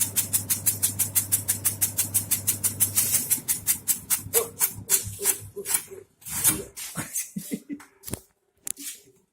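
Automatic tobacco shredding machine running, its cutter chopping at about eight strokes a second over a steady motor hum. About three seconds in, the hum stops and the chopping slows and dies away as the machine runs down, followed by a few scattered knocks.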